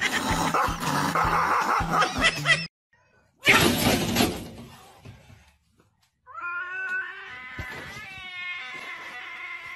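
A black domestic cat meowing, one long wavering call from about six seconds in to the end. Before it come a dense mix that stops suddenly and a short burst of noise.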